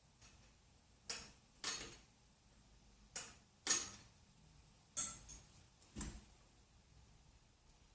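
A series of about seven sharp metallic clinks and clanks, some in quick pairs: hand tools or metal parts being set down and handled.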